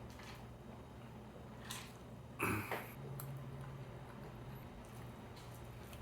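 Close-miked eating sounds: chewing and mouth clicks, with one louder bite or crunch about two and a half seconds in, over a steady low hum.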